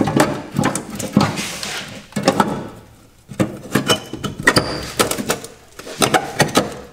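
Irregular knocking and rattling of metal parts on the underside of an electric kei mini truck as a hand works at them, with a couple of short high squeaks near the middle.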